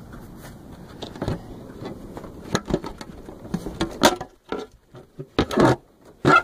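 Irregular clicks, taps and knocks of a truck's quarter-window glass and its mounting studs and gaskets being handled and fitted by hand, with the loudest knocks about four seconds in, around five and a half seconds, and near the end.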